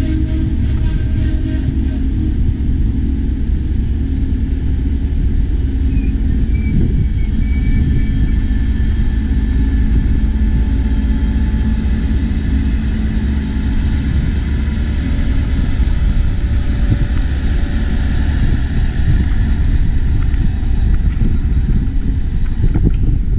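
Diesel train engine running with a steady low rumble.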